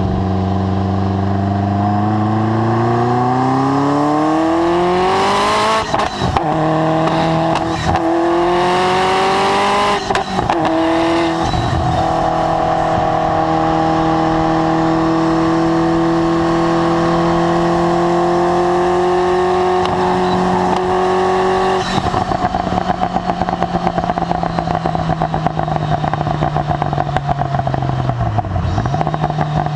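Ferrari F40's twin-turbo V8, through a Tubi Style exhaust, pulling hard through two quick upshifts about 6 and 10 seconds in, then holding a long climb in a high gear. About two-thirds through the throttle is lifted and the engine runs rough and crackling on the overrun, dipping once more near the end.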